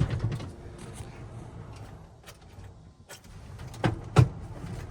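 A few sharp clunks as the combine's controls are handled to take it out of gear before a restart, the loudest two about half a second apart near the end.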